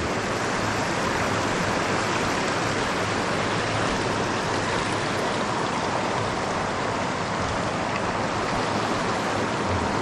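Creek water rushing steadily over a shallow rocky riffle.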